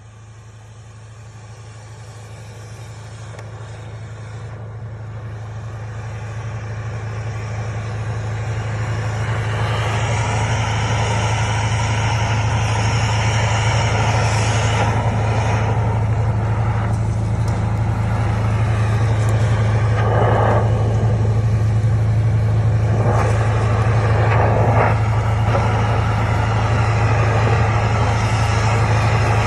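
A steady motor-driven machine running, with a strong low hum and a rushing noise over it. It grows louder over the first ten seconds or so, then holds steady, with a couple of brief surges in the rushing noise.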